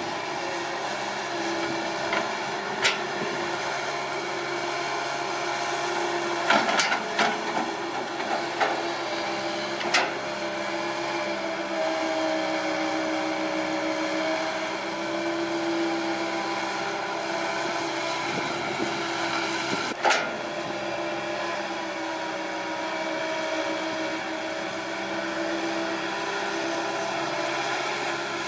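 Komatsu PC160 hydraulic excavator's diesel engine running steadily while digging, with tones that swell and fade as it works. There are a few sharp knocks, a cluster of them about a quarter of the way in.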